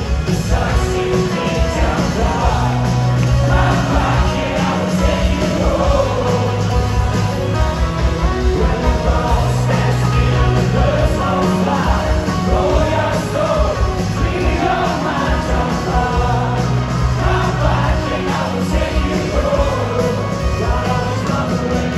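Live rock band playing with electric guitars, bass and drums, a singer over it, through a big hall's PA.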